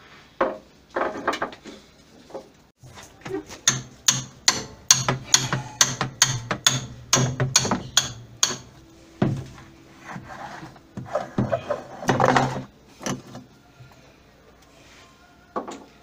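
Hammer blows on the wash basket of an LG top-loading washing machine: a quick run of sharp knocks, about three a second for several seconds, then a rougher, longer noise near the end. The basket is stuck fast and is being knocked loose.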